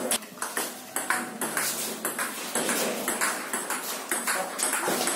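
Table tennis ball striking rubber paddles and the table, a series of sharp, irregular clicks.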